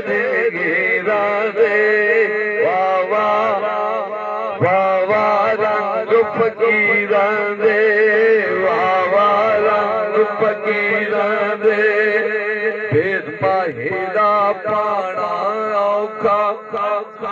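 Opening of a Punjabi Sufi devotional song (kalam): a wavering, ornamented melody over a steady drone, before any lyrics are sung.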